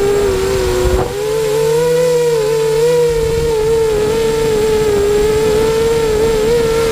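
Eachine 250 racing quadcopter's electric motors and propellers whining steadily, heard from the GoPro mounted on the craft. The pitch wavers slightly up and down as the throttle changes, with a short knock about a second in.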